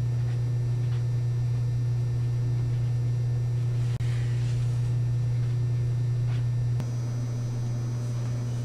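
Steady low hum of room noise with no speech. It drops out for an instant about four seconds in and turns slightly quieter after an edit about two seconds from the end.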